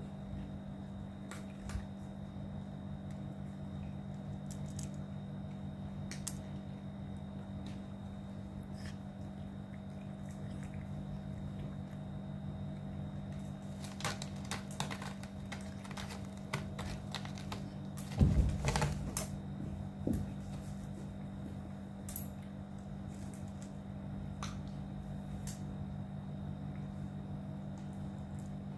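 Cats eating dry kibble from stainless steel bowls: scattered crunching clicks, with a louder clatter about two-thirds of the way through, over a steady low hum.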